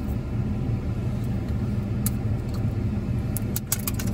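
Steady low rumble of a car idling, heard from inside the cabin, with a few light clicks near the end.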